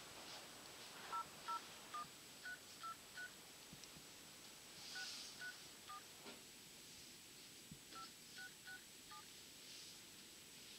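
Smartphone dialer keypad tones: thirteen short, faint DTMF beeps, each a pair of tones, as the digits 00 1 323 634 5667 are keyed in. They come in three runs of six, three and four, with pauses of about two seconds between.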